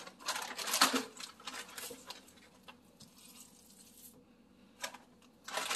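Wooden spatula stirring seasoned raw ground beef in a stainless steel bowl: soft squishing and scraping strokes, busiest in the first two seconds, with a couple more near the end.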